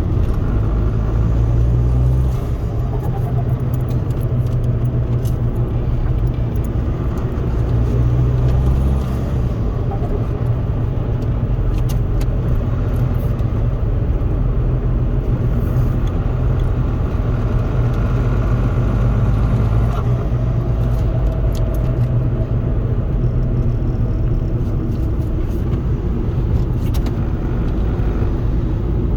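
Four-cylinder turbodiesel of a remapped Ford Focus 1.8 TDCi with an open cone intake, driving with road and engine noise heard from inside the cabin. The low steady drone dips briefly a little after 2 s and again around 9 s.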